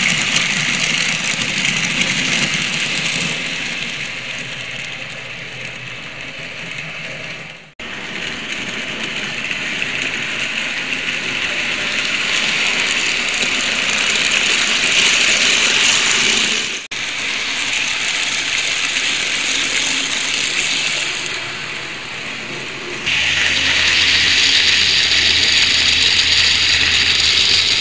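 N scale model freight train running on its track close to a small camera microphone: a steady rushing, clicking noise of the little metal wheels on the rails and the locomotive's motor. The sound cuts off abruptly about 8 and 17 seconds in, then picks up again. From about 23 seconds in it is louder, with a low hum under it.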